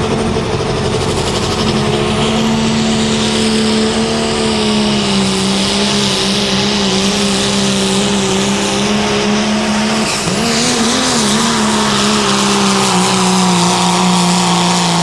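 Pro stock diesel pickup's turbocharged diesel engine running hard under load as the truck pulls the sled, a loud, steady drone whose pitch wavers about two-thirds of the way through and then holds slightly lower.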